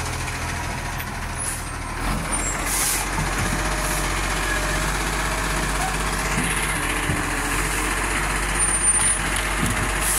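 Garbage truck's diesel engine running steadily close by, with several short hisses of air and scattered knocks as it lifts a wheelie bin at its side.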